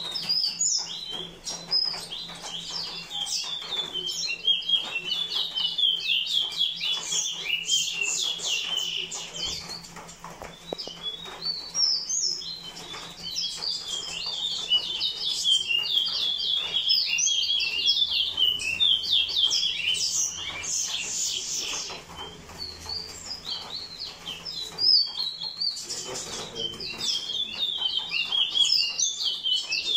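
Caged songbirds singing against each other in a song contest, with long, fast runs of high chirps and twitters that barely pause.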